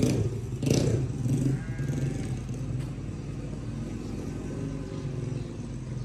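A steady, low mechanical hum like a running engine, with two short louder noises in the first second.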